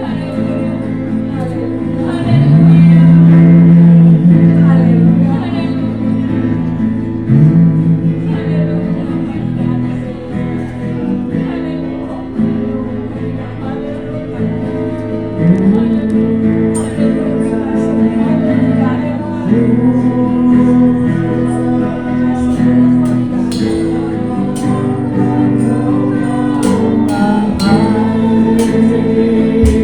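Christian worship song with long held sung notes over a sustained accompaniment. Sharp percussion hits come in during the second half.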